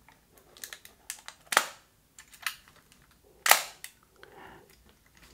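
Nikon F3 35mm SLR being wound on and fired: light mechanical clicks from the wind-on lever and two sharp clacks of the mirror and horizontal titanium-foil focal-plane shutter, about two seconds apart.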